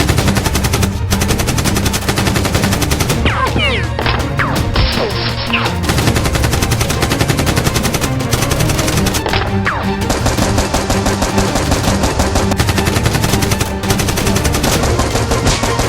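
Continuous rapid automatic gunfire, a dense volley of shots without a pause, over background music with a steady low bass line.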